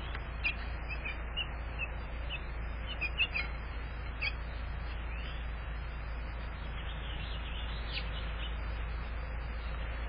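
House finches giving short, high chirps, scattered through the first half and in a quick run about seven to eight seconds in, over a steady low hum.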